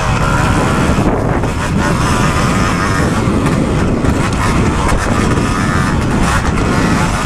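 Kawasaki KX250 motocross bike engine running hard under throttle while riding a dirt track, its pitch wavering with the throttle, mixed with heavy wind rumble on the mounted microphone.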